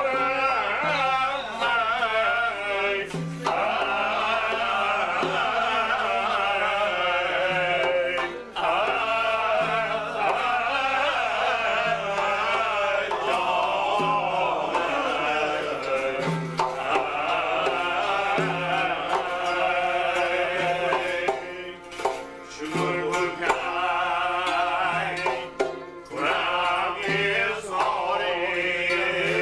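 A man singing with long-necked plucked lutes playing along, a low note pulsing about every two seconds.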